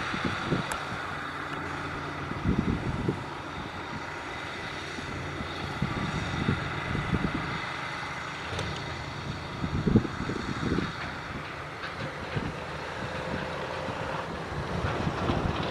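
Caterpillar 140H motor grader's diesel engine running steadily while grading gravel, with irregular knocks and rattles; the loudest knock comes about ten seconds in.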